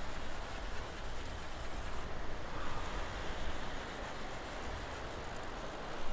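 Steady outdoor noise of wind rumbling on the microphone over the wash of the surf, with no clear single event standing out.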